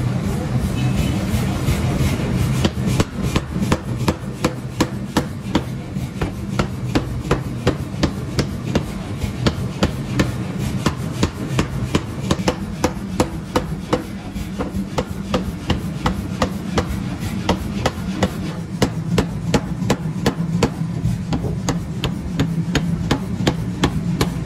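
Motor-driven mechanical power hammer pounding a red-hot steel bar on its anvil in quick, regular blows, over the steady hum of its running drive.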